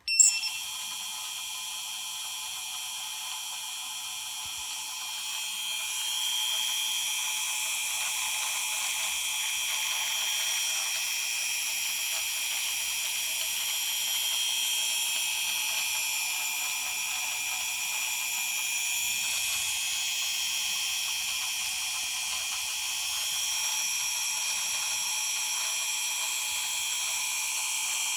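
XNOVA 2204 brushless motor spinning with a steady high-pitched whine made of several tones, a noise its owner finds abnormal. It starts suddenly with a sharp click and gets a little louder about six seconds in.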